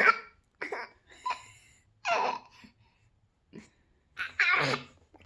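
A boy making fake hiccup sounds: about six short, sharp vocal hics with laughter mixed in, the last one near the end longer and loudest.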